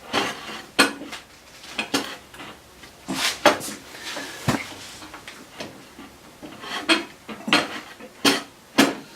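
Wooden circle-cutting jig knocking and scraping against the bandsaw table as its dovetailed strip is worked into the table's dovetail slot: a run of irregular clicks and knocks, some ringing briefly.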